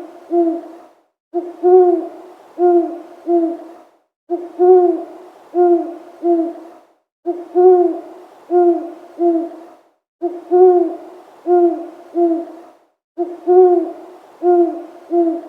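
Owl hooting in repeated phrases, one every three seconds or so. Each phrase is a short soft note followed by a loud low hoot and two more hoots.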